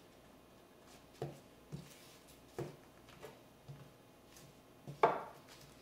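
Handling noise: about half a dozen light knocks and taps as records are handled, the loudest a sharper knock about five seconds in.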